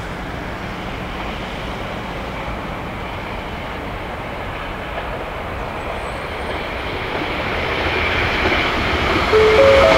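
683-series Thunderbird limited-express electric train approaching at speed, its running noise rising steadily and growing loud over the last few seconds. Near the end a short run of stepped, rising tones sounds over it.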